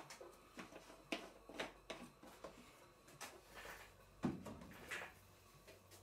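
Model vertical steam engine running slowly on steam: faint, uneven clicks and taps, with a faint low hum coming in about two-thirds of the way through.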